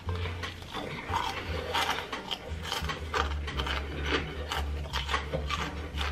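Close-miked chewing of crunchy food: a rapid, uneven series of rasping crunches, about two or three a second, over a steady low hum.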